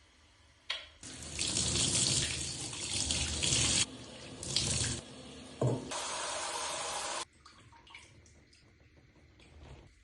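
Running water rinsing washed hair, starting about a second in and shutting off about seven seconds in, its rush changing in strength as the hair moves under the stream. Small handling sounds follow.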